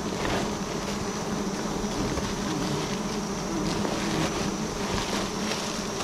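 A large swarm of honeybees buzzing in a steady, unbroken hum around their wild nest, stirred up by the comb being cut from it.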